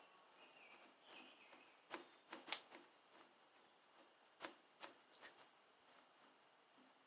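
Faint, scattered metallic clicks and taps of a wrench working a rusted exhaust bolt loose on the tractor's muffler adapter, with a faint high squeak in the first couple of seconds.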